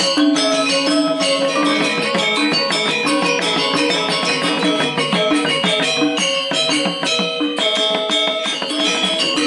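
Balinese gamelan playing: a dense, fast texture of many ringing metallic notes.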